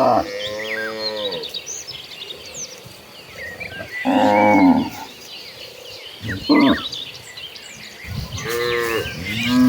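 Cows mooing, four calls from the herd: a long low moo at the start, another about four seconds in, a short one a little later, and a long one starting near the end.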